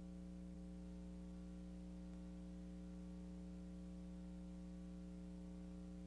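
Faint, steady electrical hum: a low buzz with several overtones that holds unchanged throughout.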